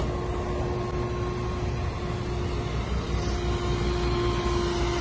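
A motor vehicle's engine running with a steady low rumble, a faint steady tone sitting above it.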